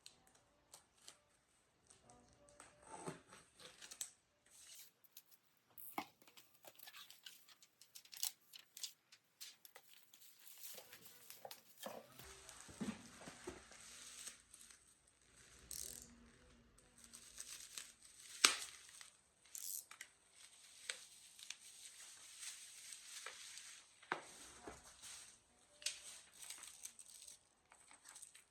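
Packaging being handled and opened: paper and plastic crinkling and tearing, with scattered small clicks and taps.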